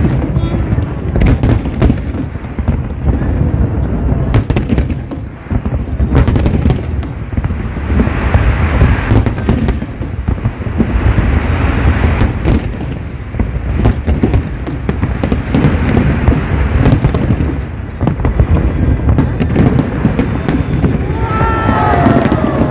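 Big fireworks display: a dense, continuous run of booms and sharp bangs over a deep rumble, with stretches of crackling hiss about a third of the way and halfway through. A few falling tones near the end.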